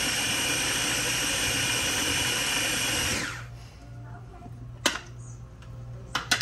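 Countertop blender running at high speed, pureeing a garlic butter and mushroom sauce, switched off about three seconds in and spinning down. A few sharp clicks and knocks follow as the blender is handled.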